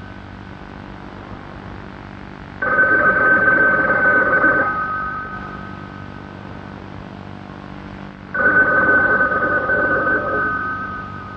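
Red rotary-dial telephone ringing twice. Each ring lasts about two seconds, starts suddenly and fades away, with a few seconds' pause between the rings.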